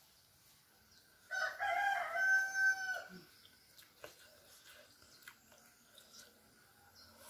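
A rooster crows once, a call of about two seconds that holds a steady pitch and drops off at the end.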